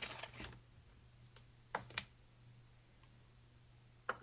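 Small handling noises at a tying bench: a short rustle at the start, then a few faint, separate clicks as bucktail and tools are picked up, over a faint steady low hum.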